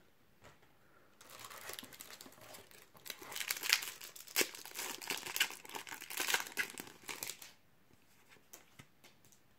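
A Topps Match Attax trading-card pack wrapper being handled and torn open by hand: crinkling and tearing, starting about a second in and lasting some six seconds, busiest in the middle.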